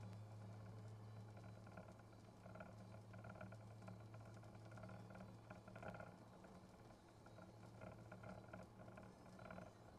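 Faint sound inside a moving car: a low steady hum that fades about six seconds in, with irregular soft patter.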